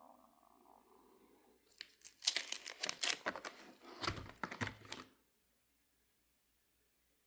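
Rustling and crinkling of trading cards and paper pages being handled, with sharp little clicks, from about two seconds in; the sound then cuts out completely about five seconds in.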